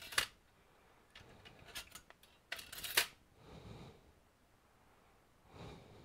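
Small handling sounds at a repair bench: a few sharp clicks and rustles of a white disposable glove and small laptop parts, loudest near the start and about three seconds in, then two softer rustles.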